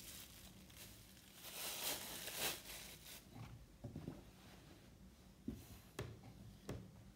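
Plastic wrap crinkling as a lump of clay is handled and unwrapped, then, near the end, a few short knocks from a wooden rolling pin working the clay under a canvas cloth.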